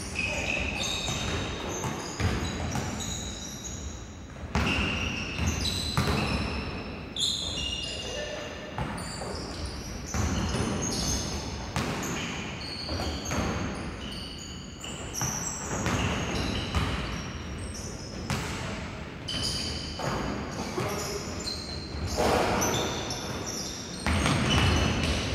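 Basketball being bounced and dribbled on a hardwood gym floor, with frequent short, high squeaks from players' sneakers on the court.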